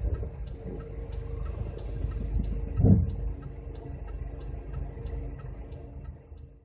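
A 2004 Mazda Demio DY5W driving, heard from inside the car: a steady low road and drivetrain rumble with evenly spaced ticking at about three a second, and one louder thump about three seconds in.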